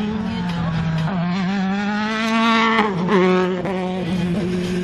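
Single-seater race car engine revving through a slalom: the pitch climbs from about a second in, falls sharply near three seconds as the throttle comes off, then picks up again. A steady low hum runs underneath.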